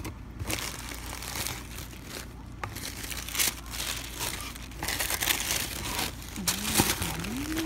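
Plastic packaging crinkling and rustling in irregular stretches as wrapped products are handled and pulled out of a box, louder in the second half.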